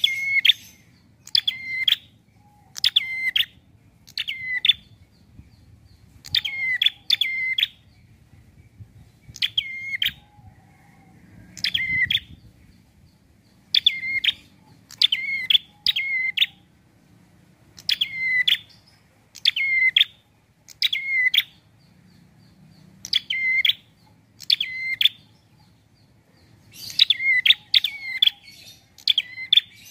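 Caged tailorbird calling: sharp, loud chirps in quick clusters of two or three notes, repeated every second or two, with a denser run of calls near the end.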